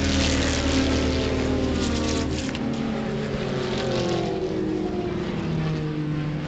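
Pre-1974 production saloon race cars passing close at racing speed, their engine notes falling in pitch as they go by. The heavy low rumble drops away about two and a half seconds in, and another car's engine note comes up near the end as more cars approach.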